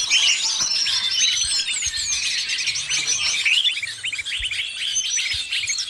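A dense chorus of many small birds chirping and chattering at once, with overlapping quick calls and whistled sweeps and no pause. It is a mixed 'noisy birds' lure recording that includes greater green leafbird (cucak ijo) calls.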